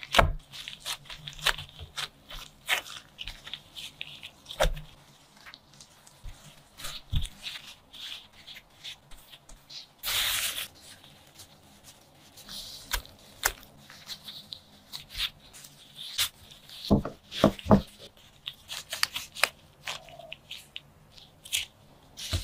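Gloved hands working soft dough on a floured wooden board and baking sheet: scattered soft taps, pats and rubbing. There is a second-long tearing rustle about ten seconds in, and three quick low thumps a little later.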